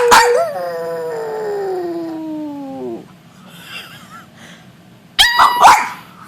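Dog howling: one long howl that slides steadily down in pitch over about three seconds, then after a pause a few short, high calls near the end.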